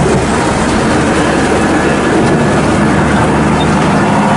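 Pressure-washer water jet spraying against a Scania truck's front and the muddy ground, a steady loud hiss and spatter over a low mechanical rumble.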